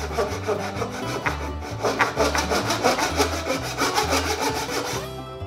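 Pull saw rip-cutting a kerf lengthwise down the grain of a wooden hatchet handle, in repeated strokes; the sawing stops near the end. Background music with a steady bass plays underneath.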